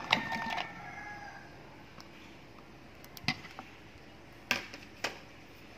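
Halved calamansi tipped off a plastic plate into a bowl of seasoned pork cracklings, the fruit landing in a brief burst of sound at the start. Three sharp clicks follow in the second half.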